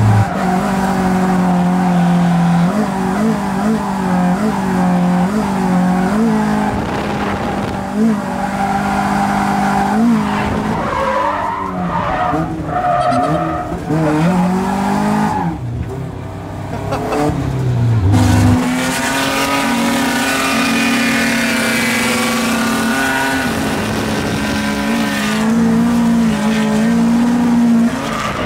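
A drift car's engine revving hard, its pitch rising and dipping repeatedly with the throttle, then holding a long high steady note for the last ten seconds or so, with tyres squealing as the car slides, heard from inside the car.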